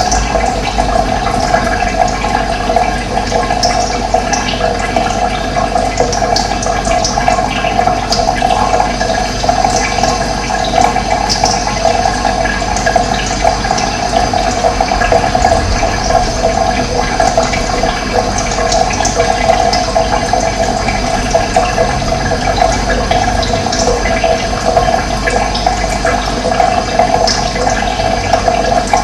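Running water rushing steadily, with faint short bird chirps scattered over it.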